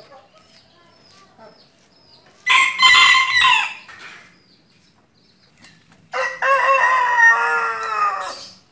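Roosters crowing twice: a short crow about two and a half seconds in, then a longer, drawn-out crow of about two and a half seconds whose pitch drops toward the end.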